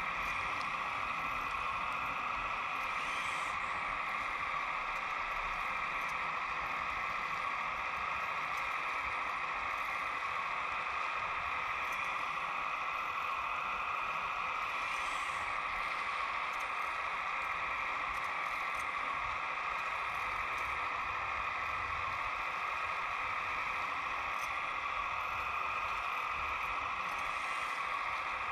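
Hydraulic pump of a radio-controlled Kubota U17 mini excavator whining steadily while the machine digs soil and swings to load it into a truck bed.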